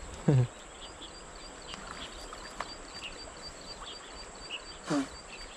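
A small animal chirping rapidly and evenly, about five high chirps a second, with scattered other chirps over a steady hiss of outdoor background. A brief human voice sounds just after the start, and another short call falls in pitch near the end.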